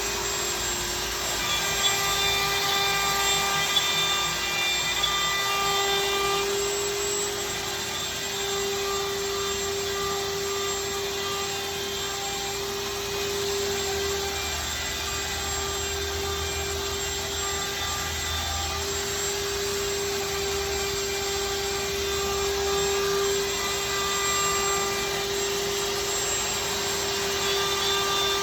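Avid CNC router running a cutting job: the spindle holds a steady high whine over the hiss of the cut. A low hum joins in about halfway through and fades several seconds later.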